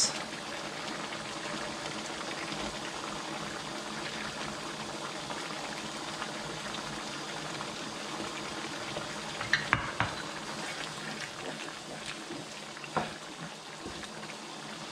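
Tomato-sauce stew of chicken and liver bubbling steadily in a pan, just come to the boil. A few sharp clacks against the pan about two-thirds through, and a spatula stirring near the end.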